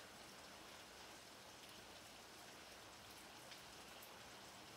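Light rain falling: a faint, steady hiss with scattered ticks of individual drops.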